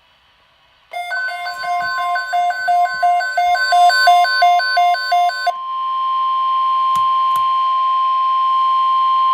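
Weather radio alert: a steady NOAA 1050 Hz warning alarm tone starts about a second in, overlaid for the first few seconds by a rapid, repeating electronic beeping pattern at several pitches, which stops about halfway through while the steady tone holds. Two faint clicks come near the middle.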